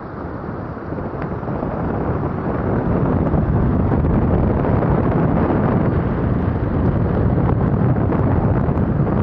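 Floodwater rushing in white-water rapids across an overtopped county road, loud and steady, swelling over the first few seconds, with wind buffeting the microphone.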